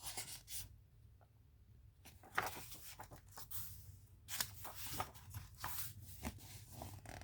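Soft, scattered rustling and handling noises of a picture book's paper pages being turned and moved.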